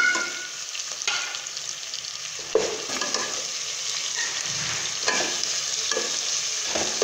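Minced meat and onions sizzling in hot oil in a metal pot, stirred with a spoon that scrapes and knocks against the pot every second or so, the sharpest knock about two and a half seconds in.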